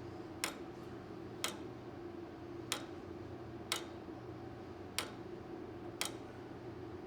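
Freshly wound 1913 J. Smith and Sons tower clock movement ticking: six sharp ticks a little over a second apart, from its escapement as the pendulum swings, over a faint steady hum.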